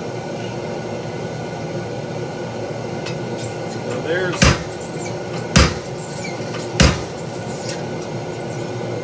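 Treadle hammer striking a spring fuller three times, about a second apart, forging the corners of a hot 3/8-inch square mild steel bar stood on its diamond. A steady hum runs underneath.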